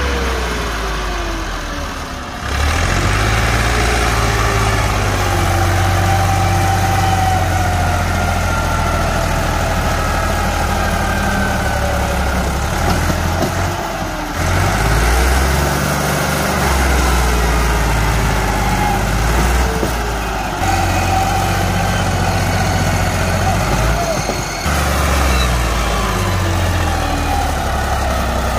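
Millat MF-260 tractor's three-cylinder diesel engine labouring under a heavy load as it hauls a loaded trailer. The engine note swells and drops back several times as the throttle is worked.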